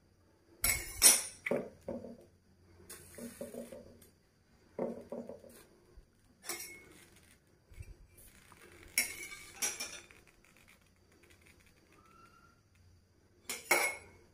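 Metal kitchen pots and utensils clinking and clattering in several short, separate bursts, the loudest about a second in and another near the end.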